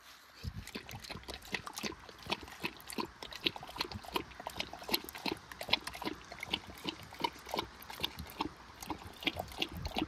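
A dog chewing and smacking its food: a quick, irregular run of clicks, several a second.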